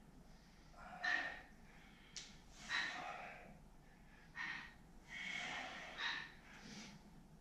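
Heavy breathing of people doing push-ups: a series of short, forceful breaths, about one every second to second and a half.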